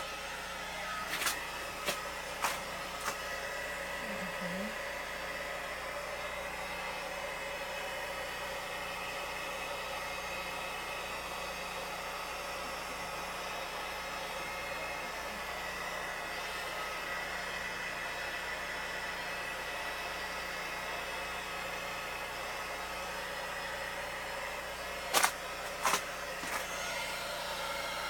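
A generator running with a steady hum, broken by a few sharp knocks near the start and two more near the end.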